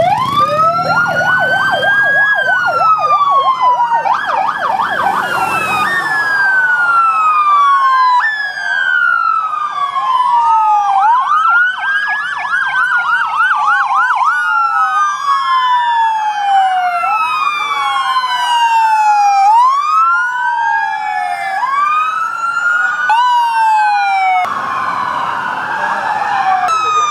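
Several police car sirens sounding together. Slow rising-and-falling wails overlap one another, with stretches of fast yelping, about a second in and again around the middle.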